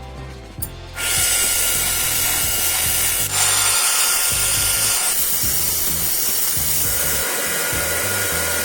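A power tool working steel, a loud steady high hiss that starts about a second in and stops near the end. Background music plays underneath.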